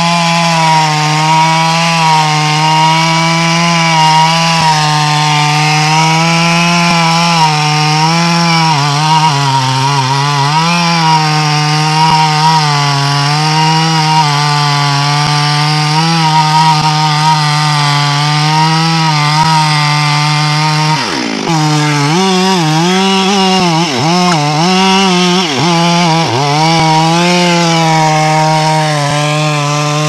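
Stihl chainsaw cutting into the base of a thick, dry teak trunk at high revs. The engine note holds fairly steady, then sags and recovers several times in the later part as the chain loads up in the wood.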